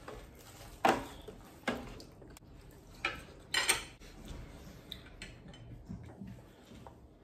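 Food packaging and a plate being handled on a tabletop: four short crinkling or clattering sounds in the first four seconds, then quieter fiddling as a würstel is peeled.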